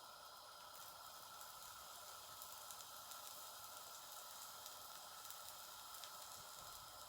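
Faint steady sizzle of pancake batter cooking in an oiled pan on the stove, with light scattered crackles.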